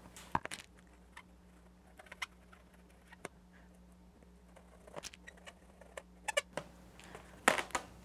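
Scattered soft taps and rubbery squeaks of a white paint-pen tip dabbing on an inflated latex balloon, with light handling of the balloon; the taps come more often and louder in the second half.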